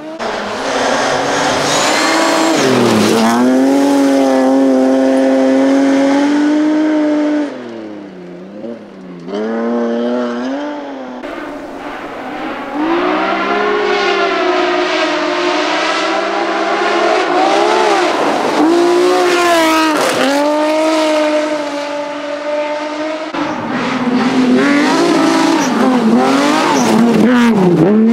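BMW rally car engines at full throttle, the pitch climbing and then dropping sharply at each gear change, with several cars in turn and tyre noise beneath.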